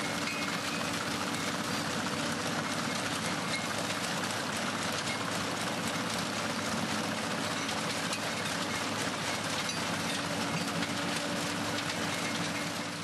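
Tractor-mounted Valentini FR stone crusher at work, its rotor crushing rock into gravel with a dense, steady rattle and clatter over a constant hum. The sound fades out near the end.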